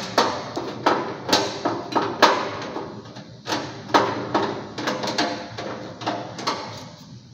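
Irregular metallic clanks and knocks, about two a second, as the galvanised sheet-metal panel and blower housings of a fan coil unit are handled and worked with screwdrivers; the strikes ring briefly and thin out near the end.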